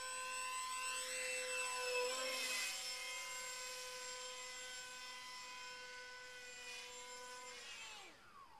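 RC model plane's motor and propeller giving a high, steady whine, the pitch shifting briefly about two seconds in as the plane passes. Near the end the whine falls in pitch and fades away.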